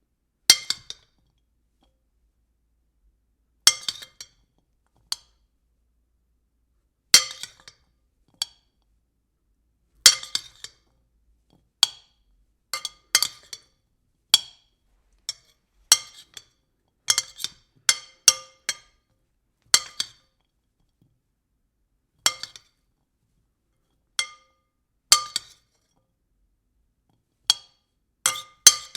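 A spoon tapping on a bowl: sharp clinks, some single and some in quick runs of two to four, each with a short ring at the same few pitches, separated by silent pauses.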